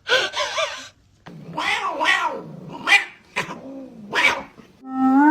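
A domestic cat making two long cries that waver in pitch, then a few short, sharp cries.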